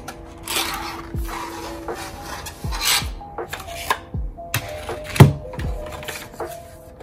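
Cardboard box and clear plastic packaging tray scraping and rustling as the tray holding a laptop stand in a velvet pouch is slid out, with a sharp knock a little after five seconds as the tray is set down on the desk. Soft background music with a steady beat underneath.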